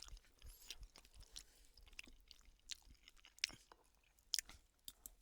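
A person chewing a mouthful of microwaved chicken tikka ready meal close to the microphone: soft, irregular wet mouth clicks, with a few sharper clicks in the second half.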